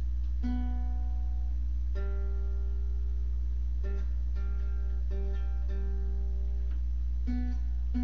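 Instrumental music: a slow line of held, pitched notes, each sounding for about half a second to two seconds, over a loud steady low hum.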